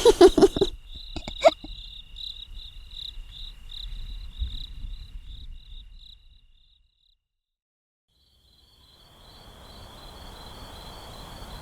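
Night ambience of crickets chirping in a fast, even trill; it cuts out completely for about two seconds in the middle, then comes back over a faint steady hiss.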